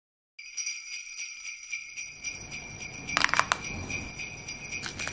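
Sleigh bells jingling in a steady pulsing shake, starting just after the opening silence. A couple of sharp clicks cut through about three seconds in.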